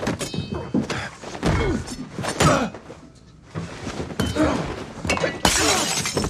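Fight sound effects: a run of blows and thuds with grunts of effort, then a loud crash of breaking glass near the end.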